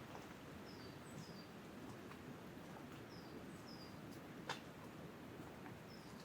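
Wind blowing through treetops as a steady low rush, with a small bird's short high chirps, each falling in pitch, repeated about six times. A few sharp clicks, the loudest about four and a half seconds in.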